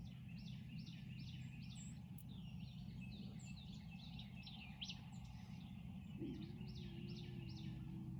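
Songbirds chirping and singing, many short rising notes in quick succession, over a steady low outdoor rumble. A faint steady hum comes in about six seconds in.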